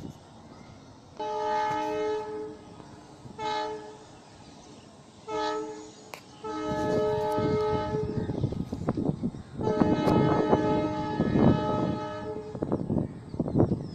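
Train horn sounding about five multi-tone blasts, the first three short and the last two longer, with the rolling noise of the passing passenger train under the later ones.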